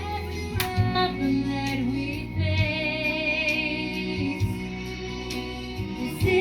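Music: the accompaniment for a Christian worship ballad, with a female voice singing a wavering melodic line and no clear words.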